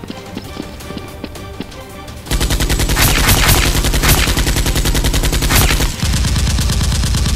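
Rapid automatic gunfire sound effect, laid over toy blasters being fired, starting about two seconds in and running on loud with a brief break near the end. It follows a quieter stretch of background music.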